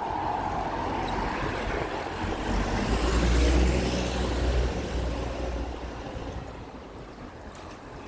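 A motor vehicle passing close by on the street: engine rumble and tyre noise swell to a peak about three and a half seconds in, then fade away.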